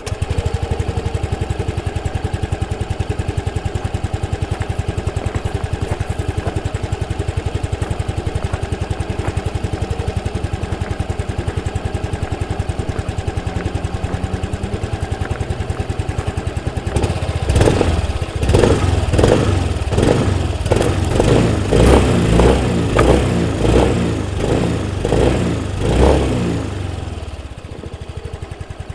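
Yamaha Delight 125 scooter's 125 cc single-cylinder four-stroke engine idling steadily. About two thirds of the way in, the throttle is blipped in a quick run of about a dozen short revs, and then the engine drops back to idle near the end.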